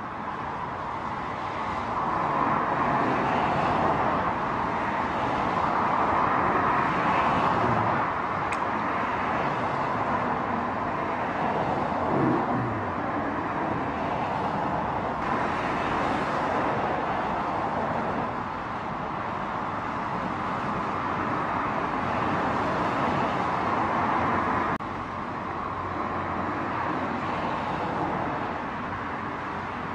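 Steady roar of expressway traffic, swelling and easing as vehicles pass.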